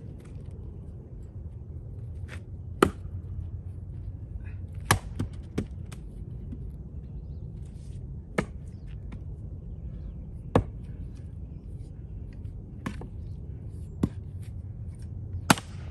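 Axe blows splitting a maple round: about eight sharp, separate strikes of the axe into the wood, one to three seconds apart.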